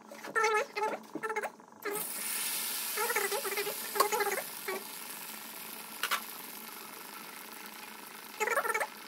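Litti, stuffed wheat-dough balls, deep-frying in hot oil in a steel kadhai: a steady sizzle that starts about two seconds in, with a couple of sharp clicks.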